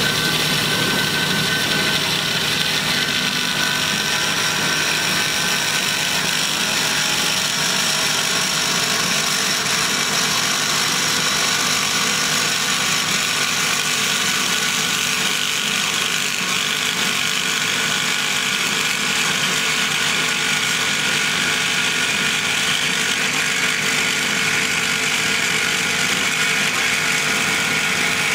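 Hyd-Mech S-23A horizontal band saw running steadily, its blade feeding down through a rectangular steel tube as it cuts.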